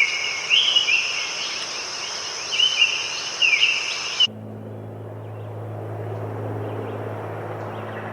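Steady high-pitched insect trill with repeated chirping calls, which cuts off abruptly about four seconds in and gives way to a low steady hum under a soft wash of noise.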